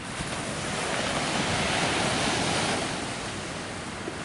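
Gulf of Mexico surf washing up the beach: a wave swells about a second in and eases off toward the end, with wind buffeting the microphone.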